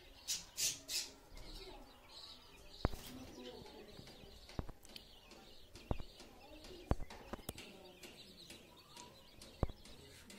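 Baby chicks peeping over and over, with scattered sharp clicks and three short hissy bursts in the first second.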